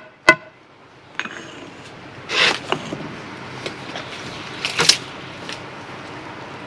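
A last ringing tap of a trowel on the concrete lintel, then bricklaying work at the lintel's bearing on the block pillar: two short scrapes and a few small knocks as mortar is worked around the lintel end.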